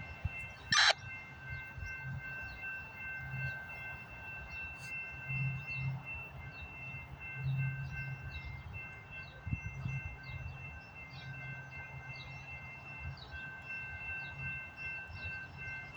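Amtrak passenger train running past: a low rumble, with a steady high ringing of several tones over it.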